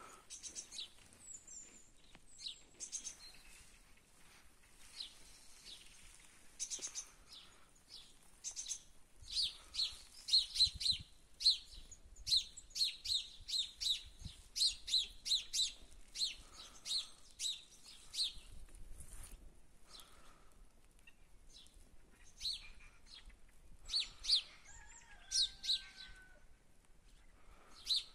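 Small birds chirping: a steady run of short, high chirps at about two a second through the middle, with scattered chirps before and after.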